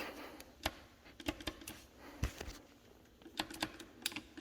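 Irregular sharp clicks and knocks from a 2008 Suzuki RM85 dirt bike's gearbox and shift lever being worked by hand while hunting for first gear.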